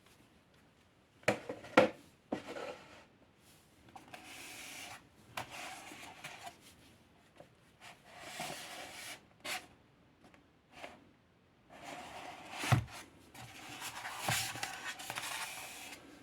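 ASG CZ-75D Compact spring airsoft pistol being handled: a few sharp clicks and several stretches of scraping and rubbing as parts are moved, with a loud click about two-thirds of the way in.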